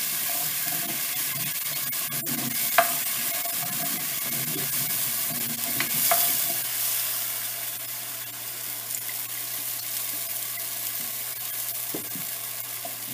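Beef stock sizzling in a hot enamelled cast-iron pot while a wooden spoon stirs and scrapes the browned bits off the bottom to loosen them for the gravy. A steady hiss throughout, with two sharp knocks about 3 and 6 seconds in.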